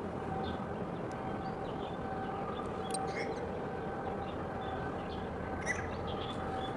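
Steady machinery hum with a few level humming tones, with short high bird chirps now and then.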